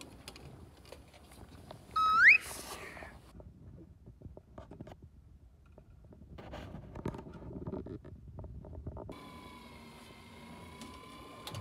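Clicks and knocks of tackle handling on a boat deck, with a short sharp rising squeak about two seconds in. About nine seconds in an electric fishing reel's motor starts up and whines steadily as it winds in line.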